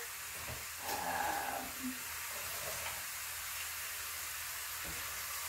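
Pork chops sizzling in a cast-iron skillet just after being flipped: a steady frying hiss, with a couple of faint knocks.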